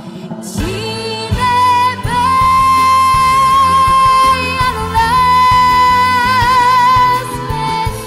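A young girl's solo voice singing a ballad live into a microphone over instrumental accompaniment, holding two long notes with vibrato, the first from about two seconds in and the second from about five seconds in.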